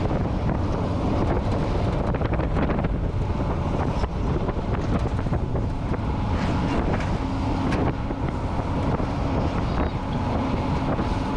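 Steady rumble of a vehicle driving at road speed, with wind buffeting the microphone.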